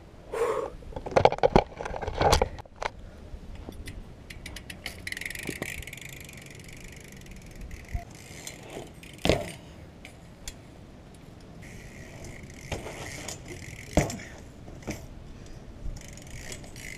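A BMX bike ridden across a rubber playground surface: tyres rolling and parts rattling, with fine ticking and two sharp knocks about nine and fourteen seconds in. In the first two seconds the camera is handled and set down, with loud rustles and knocks.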